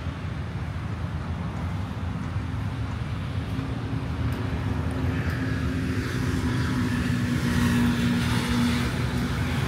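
Street traffic: a steady low rumble with a motor vehicle's engine hum that comes in a few seconds in and grows louder toward the end.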